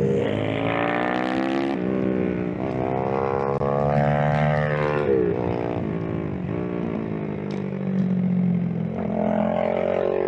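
Pit bike's four-stroke engine at speed, heard up close from on the bike: it revs up with the pitch rising, drops briefly at a gear change, climbs again, then falls off about five seconds in and runs lower and steadier.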